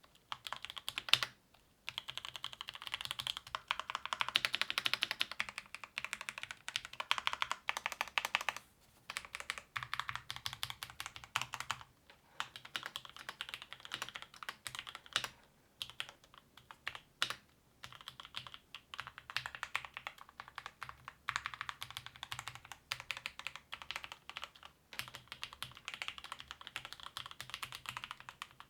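Typing on a Drop CSTM80 mechanical keyboard fitted with linear Gateron Milky Yellow KS3 switches: a fast, continuous stream of keystrokes with short pauses now and then.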